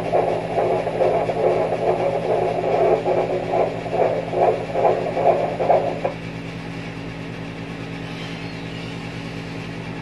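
Ultrasound machine's Doppler audio of a 24-week fetus's blood flow, pulsing rhythmically with each heartbeat. It stops about six seconds in, leaving a steady low hum.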